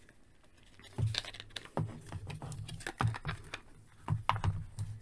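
Hollow plastic toy mech suit being handled: a run of light plastic clicks and knocks, starting about a second in, as the parts are moved and set down.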